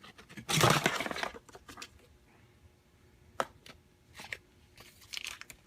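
Packaging being rummaged through and items lifted out of a product box: a loud scraping rustle about half a second in, then a sharp click and a few softer rustles.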